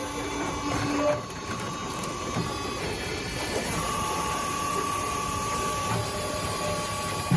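LDK 450 firewood processor running, with a steady high whine and mechanical clatter; the whine breaks off for about a second, about three seconds in, then resumes.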